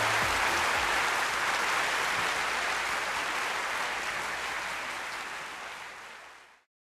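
Audience applauding, with the last low notes of the music dying away in the first second. The applause fades out and cuts off to silence near the end.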